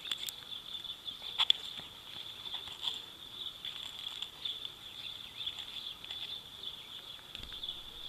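Insects keeping up a steady, high-pitched outdoor chorus, with a few faint clicks and rustles from items being handled in the hands.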